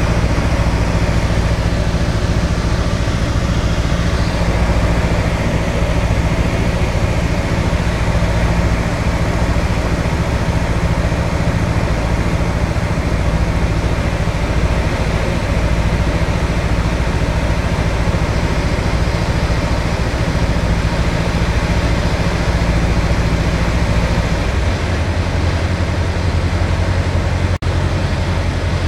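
Single-engine light aircraft's piston engine and propeller running steadily, heard inside the cockpit on final approach. About 25 seconds in, the engine note drops lower as power comes back for the landing.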